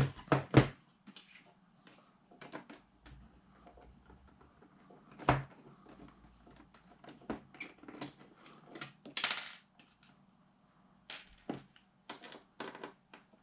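Irregular clicks, taps and light knocks of small plastic and metal parts being handled as an Xbox 360 disc drive is taken apart, with a short scrape about nine seconds in.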